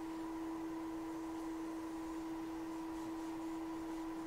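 Hot air rework station blowing steadily on a reball stencil, heating the solder paste on the chip: an even hiss under a steady hum.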